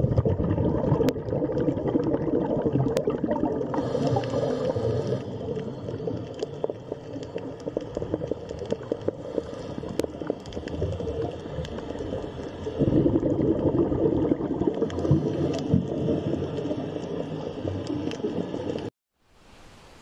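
Underwater sound of dense gurgling and bubbling water with a few sharp clicks. It cuts off abruptly shortly before the end.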